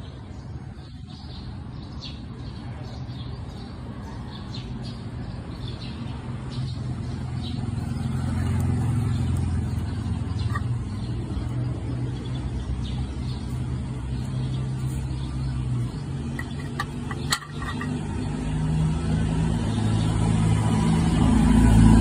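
A motor vehicle engine running low and steady, growing louder over the last few seconds, with a single sharp click in the second half.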